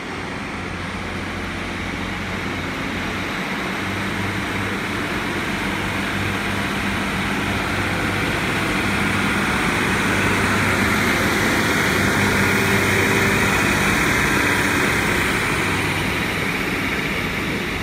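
Class 150 Sprinter diesel multiple unit pulling out under power, its underfloor diesel engines running with a steady low hum. It grows louder as the unit passes, loudest about two-thirds of the way through, then fades as it moves away.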